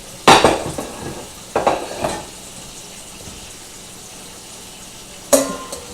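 A metal cooking pot set down hard, with a loud knock about a third of a second in and two lighter knocks around two seconds in. Near the end comes a metal clang that rings on with a few clear tones.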